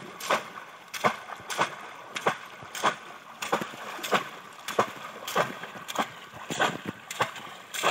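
Bamboo cone fish traps being plunged again and again into shallow flood water. They make sharp splashes at a steady pace, about a dozen of them, roughly one every half second or so.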